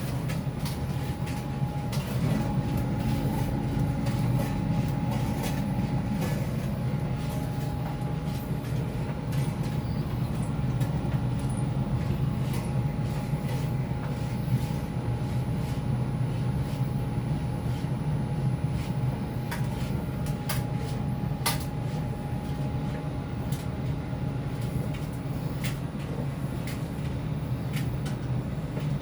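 Electrolux PerfectCare 800 condenser tumble dryer running: a steady hum and rumble from the motor and turning drum, with a faint steady whine and occasional light clicks.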